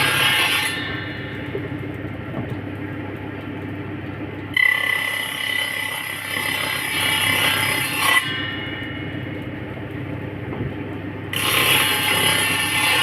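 Hand saw worked in three spells of quick rasping strokes with a thin metallic ring: at the start, from about four and a half to eight seconds, and again from about eleven seconds in. A low steady hum fills the gaps between spells.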